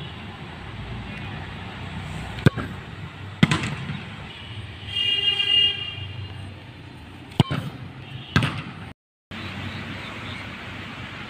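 Sharp thuds of a football being kicked with a bare foot, in two pairs about a second apart. A vehicle horn toots briefly between them.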